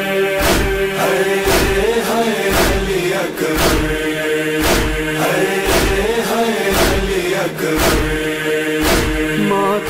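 Male voices chanting a nauha, a Muharram lament, in long held lines over a heavy beat about once a second.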